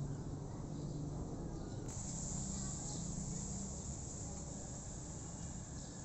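Steady high-pitched insect drone, suddenly louder about two seconds in.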